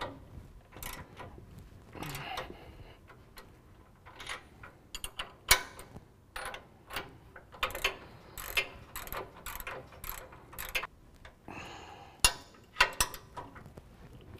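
Ratchet wrenches clicking in short, irregular runs, with metal clinks between them, as 18 mm bolts are tightened.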